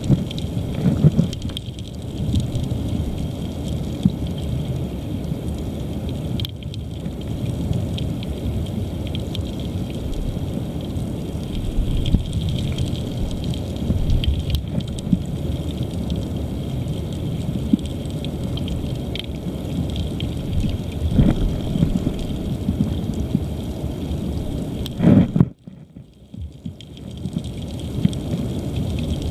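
River current heard through an underwater camera: a steady low rumbling rush of water with scattered small ticks, dropping out briefly near the end.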